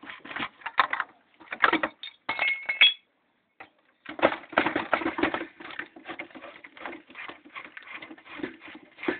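Metal clinking and tapping of hand tools and parts while the copper deflection yoke is worked loose from the neck of a TV picture tube, with a short silent pause about three seconds in.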